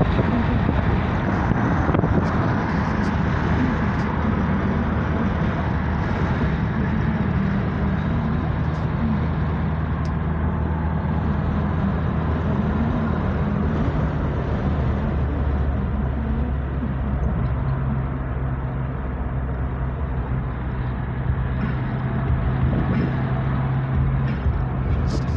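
Toyota 2KD four-cylinder turbodiesel engine running under way on a road test, with road and tyre noise; the engine note shifts in pitch a few times as the speed changes.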